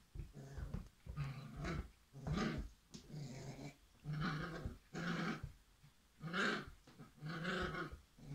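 Irish setter puppy growling in play while tugging on a rope ring toy: a string of short growls, one every half-second to a second.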